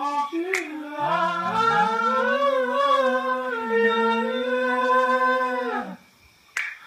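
One man's voice multi-tracked into several a cappella parts, singing a long held chord in close harmony whose lower parts slide up into place about a second in. The voices drop out together near the end for a brief silence.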